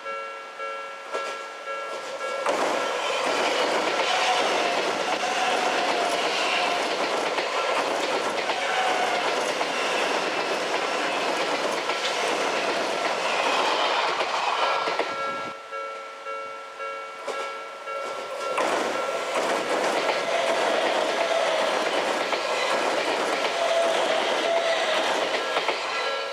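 Japanese level-crossing warning bell ringing in a steady repeating rhythm. About two seconds in, an Odakyu electric train passes through the crossing, its wheels rumbling and clacking over the rails for about thirteen seconds. The bell is heard alone again briefly before a second train passes a few seconds later.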